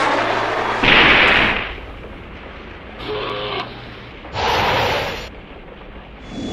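A string of dubbed explosion-like blasts, noisy bursts each lasting up to about a second. The loudest comes about a second in and another about four and a half seconds in. A short, wavering creature-like cry sounds about three seconds in.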